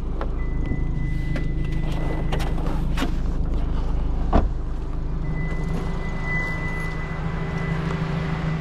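Car engine running with a steady low hum, with a few sharp clicks, the loudest about four seconds in, and a faint high steady tone in parts.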